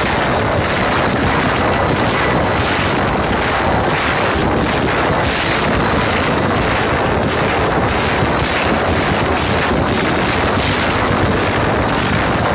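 Live band playing through a big outdoor concert sound system, picked up on a phone microphone as a loud, dense wash of distorted noise.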